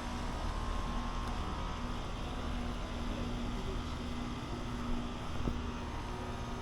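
Outdoor air-conditioner condensing units running: a steady mechanical hum with a low buzzing tone over fan noise.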